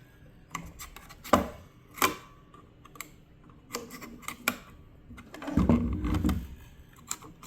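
Scattered light clicks and knocks of plastic and metal parts being handled as a circular saw's blade and blade guard are fitted by hand, with a louder, longer low handling rumble about six seconds in.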